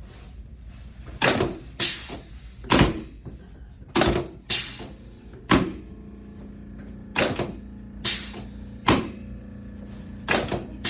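Chiropractic drop table sections dropping under thrusts: a series of sharp clunks, about a dozen over ten seconds, several in quick pairs.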